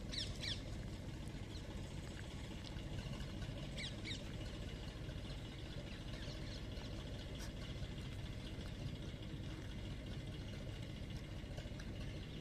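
Outdoor ambience: a steady low background rumble with a few short, high, falling bird chirps, a quick run at the start, a pair about four seconds in and one more about seven and a half seconds in.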